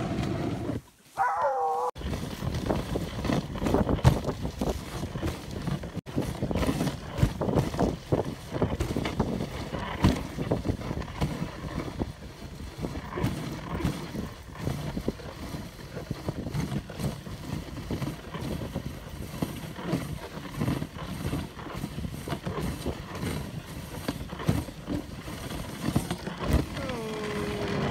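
Dog sled running along a snow trail behind its team: a steady rush of noise with frequent irregular knocks and jolts from the sled. A short falling whine comes about a second in and again near the end.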